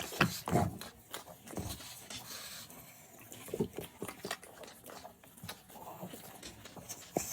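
An animal eating: irregular chewing and smacking noises with small scrapes, loudest about half a second in.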